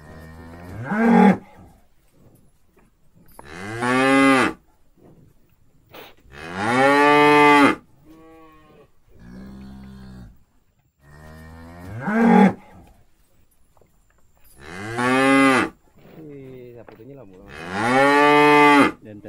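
Cattle mooing repeatedly: six long, loud moos about every three seconds, with softer, lower lowing between them.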